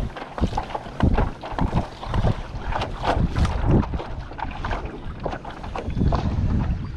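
Wind buffeting the microphone in uneven gusts, with water slapping and knocking against the hull of a small kayak.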